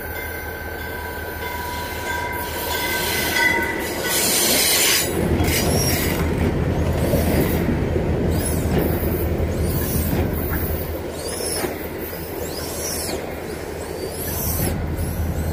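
Amtrak Cascades Talgo passenger train rolling slowly past as it pulls into the station, its wheels and brakes squealing. A steady high tone comes first, then a loud hiss about four seconds in. After that, short high squeals rise and fall about once a second over a low rumble.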